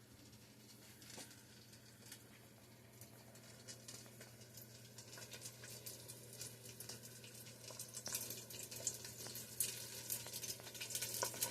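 Faint sizzling and crackling of oil and butter heating in a stovetop popcorn popper before the kernels start popping. The crackle grows denser and louder through the second half.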